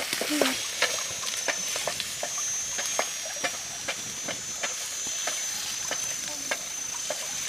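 Eel pieces frying in a metal pan over a wood fire, sizzling, with a wooden spatula stirring and knocking against the pan in sharp clicks. A steady high whine comes in about half a second in.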